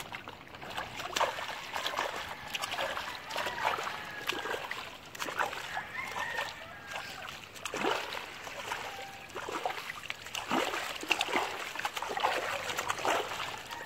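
Shallow seawater splashing irregularly around a bullmastiff as it is washed by hand while standing in the water.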